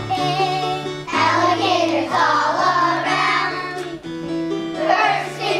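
A group of children singing together in unison over an instrumental accompaniment with a stepping bass line. The singing comes in about a second in, breaks off briefly near four seconds, and starts again.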